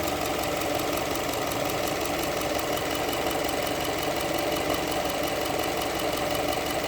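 2006 Subaru Legacy 2.0's flat-four boxer engine idling steadily with a fast, even ticking, run to burp air out of the cooling system.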